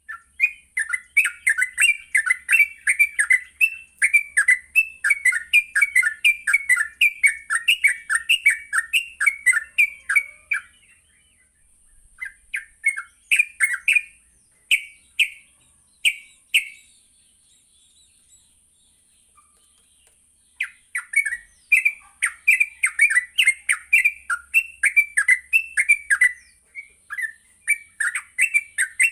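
Sooty-headed bulbul (trucuk) singing long, fast rolling runs of chattering notes, about four or five a second. Near the middle the song thins to a few scattered notes and stops for a few seconds before the run resumes, over a steady high hiss.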